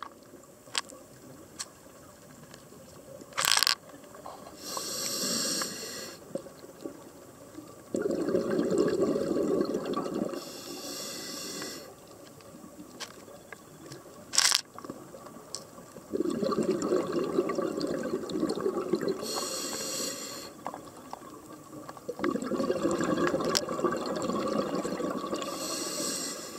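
Scuba diver breathing through a regulator underwater: long bubbling exhalations, each followed by a short hissing inhale, roughly every six seconds. Two sharp clicks stand out, about eleven seconds apart.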